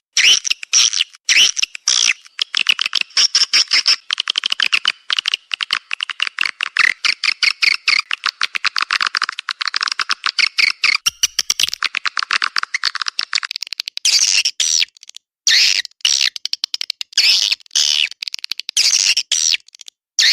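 Recorded swiftlet lure call: a dense, rapid twittering of chirps and clicks with nothing below the mid range. About 13 seconds in, the continuous chatter gives way to separate short bursts of twittering with brief gaps between them.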